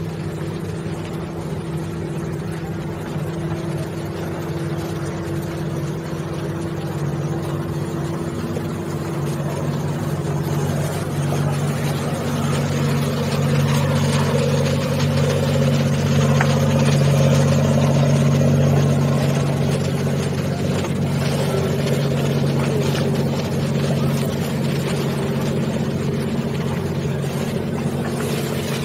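Boat engine running steadily with a low hum that grows louder around the middle and then eases off, over a hiss of wind and water.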